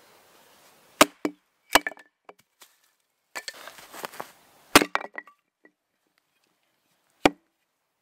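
An axe chopping into a short log on a wooden chopping block, splitting it: a handful of sharp, irregularly spaced wooden knocks, the loudest a little before five seconds in, with softer scraping noise between strikes.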